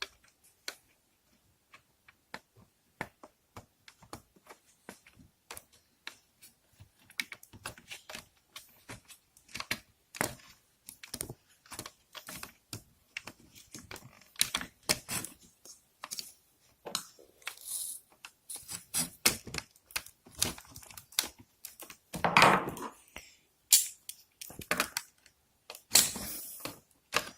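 Irregular small clicks and taps of plastic fridge-door parts and wiring being handled, coming more often toward the end, with a couple of short rustling scrapes near the end.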